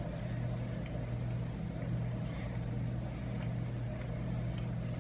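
Kitchen range hood exhaust fan running with a steady low hum, with a few faint clicks as a shrimp is chewed.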